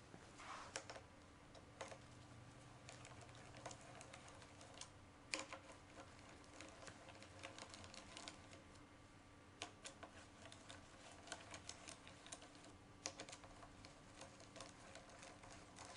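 Faint, irregular metallic clicks and ticks of a hand tool working the four bolts of a Scotts steering damper's top bar clamp as they are tightened down, with a couple of sharper clicks about five and thirteen seconds in.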